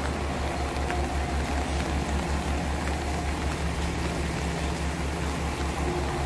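Diesel railcar engine idling with a steady low throbbing beat, over the hiss of rain.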